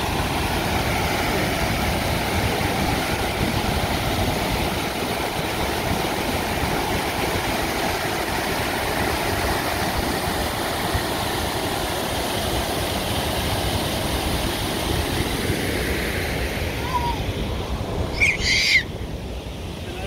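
Waterfall rushing over rocks: a loud, steady roar of falling water. Near the end there is a brief high-pitched squeak, then the rush drops away suddenly.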